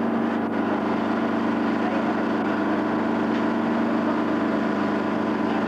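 Minibus engine idling with a steady, even hum.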